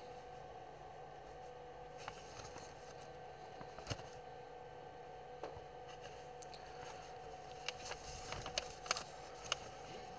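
Faint handling noise and a few sharp little clicks as metal cam locks are pressed by hand into the holes of a particle-board panel, the clicks coming closer together near the end, over a faint steady hum.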